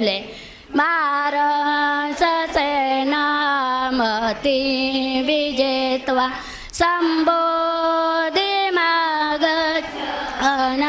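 A woman's voice chanting Buddhist verses in Pali as a slow sung melody of long held notes, amplified through a handheld microphone. She pauses briefly for breath twice.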